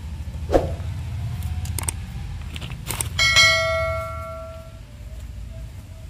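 A few sharp clicks and scrapes from a knife working inside a wooden stingless-bee hive box. About three seconds in comes a single bell-like metallic ring that fades away over a second and a half. A steady low rumble runs underneath.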